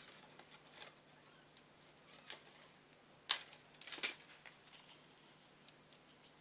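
Soft, scattered clicks and rustles of paper and adhesive being handled as a gold foil leaf is stuck onto a card with foam adhesive dots. The sharpest click comes about three seconds in.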